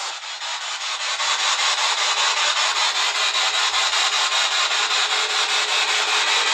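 Spirit box radio sweeping through stations: continuous static chopped into rapid, evenly spaced pulses.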